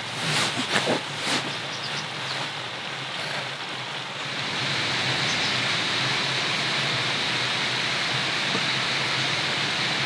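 Steady rushing of a nearby stream, growing louder about four seconds in. In the first second or two there are a few rustles and soft knocks as someone settles onto a camp cot.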